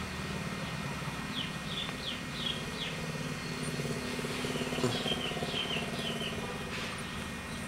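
A sleeping pet dog snoring with a steady, rattling low drone. Two short runs of high chirps sound over it.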